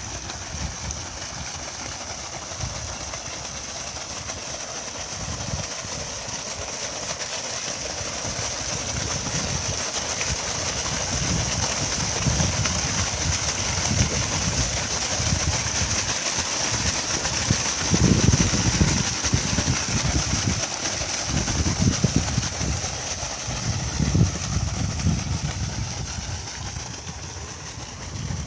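Steady rush of water pouring from the outlet pipe of a solar-powered three-horsepower centrifugal pump into a flooded field ditch, with irregular low gusts of wind buffeting the microphone, strongest in the middle of the stretch.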